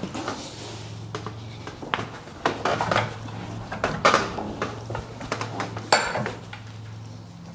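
Steel clinks and knocks as a socket and a prop shaft's universal-joint yoke are set in a bench vise and the vise is wound in to press a UJ bearing cap out, with a sharp ringing clink about six seconds in. A steady low hum runs underneath.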